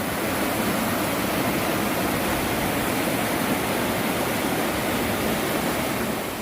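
Rushing water of a clear mountain stream, a steady, full hiss that eases off slightly near the end.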